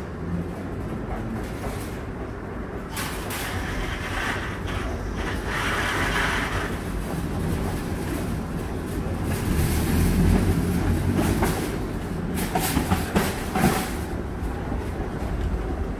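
Metal shopping trolleys rattling and clattering as one is pulled free from a nested row and wheeled off, over a steady low rumble.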